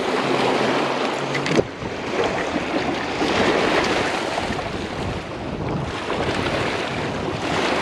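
Wind rushing over the microphone with lake water washing against the shore. A low steady hum stops with a knock about a second and a half in.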